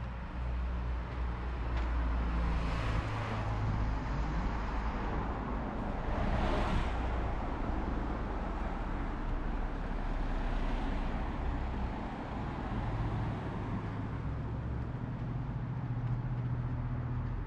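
Road traffic: cars driving past, heard as three swells of tyre and engine noise, the loudest about six and a half seconds in, over a steady low rumble.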